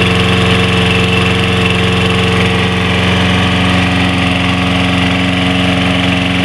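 The 6.75 gross-torque Briggs and Stratton engine on a 2009 Toro Personal Pace 22-inch mower, running steadily at a constant speed.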